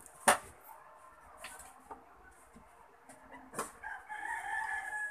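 A sharp click a fraction of a second in, a few fainter ticks, then a rooster crowing in one long call from about four seconds in.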